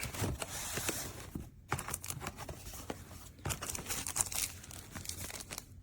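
Packaging being handled: irregular rustling and crinkling of paper, plastic and cardboard, with small knocks and clicks.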